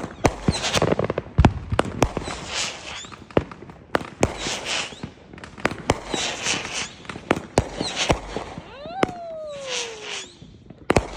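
Aerial fireworks show: repeated sharp bangs of shells bursting, with a burst of crackle roughly every two seconds. About nine seconds in, a whistle falls steadily in pitch for over a second.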